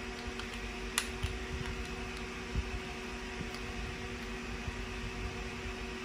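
Steady hum of a small electric fan, with light clicks of a plastic nail-care kit case and its clipper, tweezers and file being fitted back into place by hand; the sharpest click comes about a second in.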